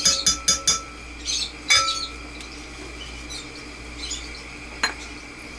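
Metal measuring spoon tapped against the rim of a ceramic mixing bowl to knock powder off it: about five quick clinks in the first second, two more a second later with a short ring, and a single click near the end.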